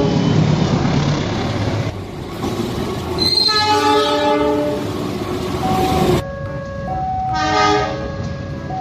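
Diesel locomotives passing, their multi-tone horns sounding in several blasts over the rumble of engines and wheels on the rails. There is a long blast about three seconds in and shorter ones after six and seven seconds. The sound changes abruptly twice where one clip cuts to another.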